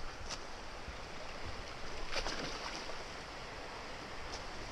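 Steady rush of river water flowing over small rapids, with three short hissing swishes, about a third of a second, two seconds and four seconds in.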